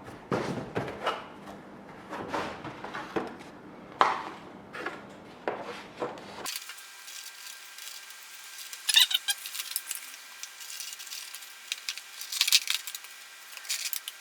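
Hands handling the small parts and packaging of a model plane kit: scattered clicks, taps and light rattles. About halfway through the sound turns suddenly thin and tinny, with a few sharper clicks.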